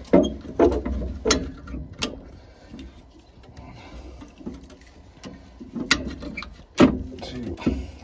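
Metal clicks and knocks of a hand tool working the fixing nuts off the burner cover of a Worcester Greenstar Junior gas boiler, with scattered sharp taps and light rattling between them.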